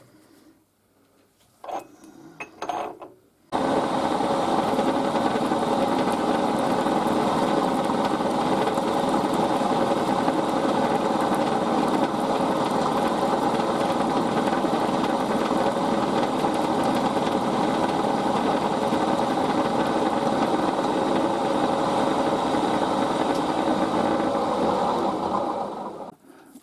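Milling machine running steadily while machining brass bar stock. It starts abruptly a few seconds in, after a couple of brief handling knocks, and runs down shortly before the end.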